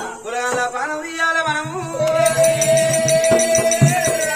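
Telugu Oggu Katha folk singing: a voice sings a moving phrase, then holds one long note from about two seconds in, over a hand drum and quick high metallic ticks keeping time.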